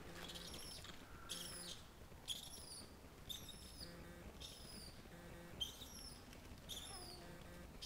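A small songbird singing, repeating a short high, twittering phrase about once a second.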